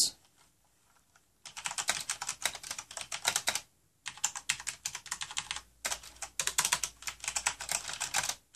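Fast typing on a Corsair K95 RGB mechanical keyboard with Cherry MX Brown switches: rapid runs of keystrokes in three spells separated by brief pauses, starting about a second and a half in.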